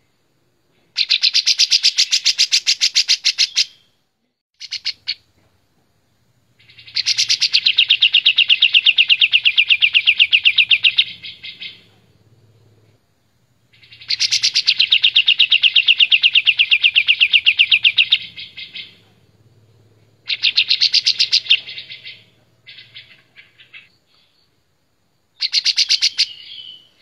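A caged kapas tembak, a bulbul, singing loud, clear, rapid trilled phrases, the longest lasting about four seconds, with short pauses and a few brief bursts between them.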